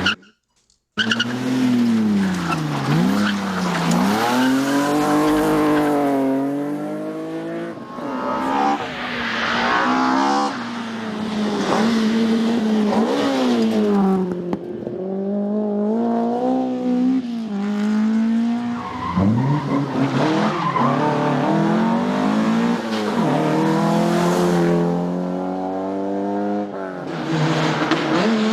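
Rally cars at full throttle, the engine pitch climbing and falling again and again through gear changes and lifts for corners. A short dropout to silence about a second in.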